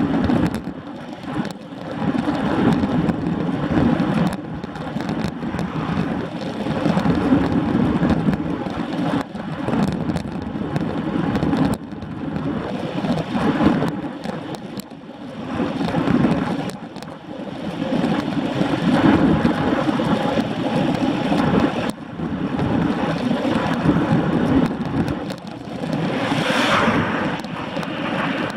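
Ride noise of a road bicycle at about 20 mph: wind rushing over the bike-mounted camera's microphone, together with tyre noise on asphalt, swelling and fading irregularly. A short, higher hiss comes near the end.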